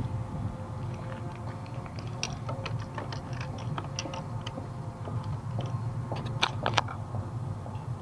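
Scattered light clicks and handling noises from a hand on a motorcycle's handlebar controls, over a steady low hum, with a few sharper clicks about six and a half seconds in. The engine is not yet running.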